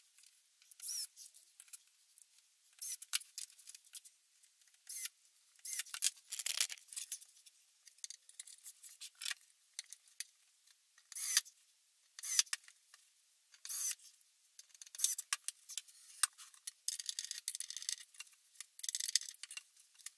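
Light, irregular clicks, taps and scrapes of a melamine cabinet door and its metal hinges being handled and fitted onto the cabinet, getting busier near the end as the door is swung.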